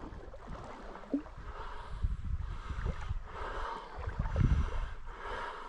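Creek water rushing steadily over a riffle, with an uneven low rumble that swells loudest about four and a half seconds in.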